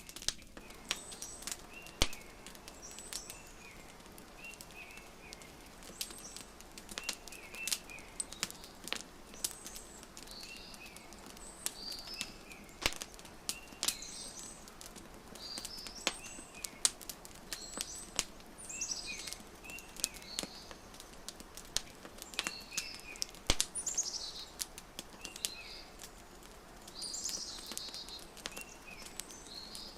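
Wood fire crackling, with frequent sharp pops scattered throughout, under songbirds repeating short chirping phrases every second or two.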